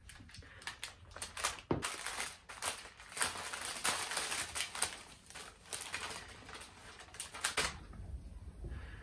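White paper flower wrapping crinkling and rustling as it is opened and handled, starting about a second and a half in and stopping shortly before the end. A single knock comes just as the crinkling begins.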